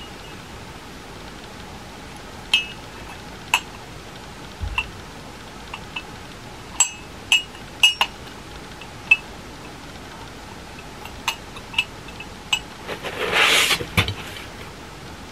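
Ceramic mugs and a spoon clinking and tapping as they are handled out of a gift box, a dozen or so short ringing clinks at uneven intervals. Near the end a brief rustling scrape of the cardboard box being moved.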